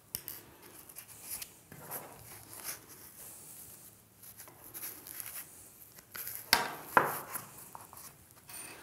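Hands handling and rubbing a padded fabric pad and belt against each other and the tabletop, with light rustling and scuffing. Two sharper, louder scrapes come about six and a half and seven seconds in.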